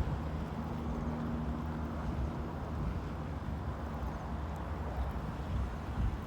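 Steady low outdoor rumble, like wind on the microphone, with a faint steady hum through the first few seconds.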